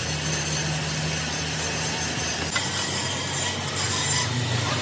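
Stick (arc) welding on a truck differential spider shaft: the steady crackle of the electrode arc laying build-up weld on the worn journal, over a low electrical hum.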